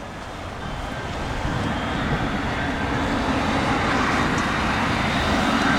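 Jet airliner's engines, a steady rushing noise with a faint whine, growing steadily louder as the plane comes closer.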